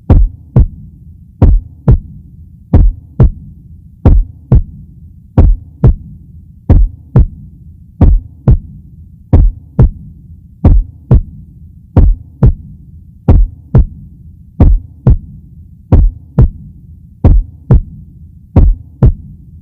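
Heartbeat: a double thump, lub-dub, repeating slowly about every one and a third seconds over a low steady hum.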